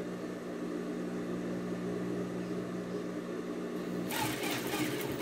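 Sewing machine motor humming steadily; about four seconds in the hum changes and a brief patch of quick, scratchy, rattling noise sets in.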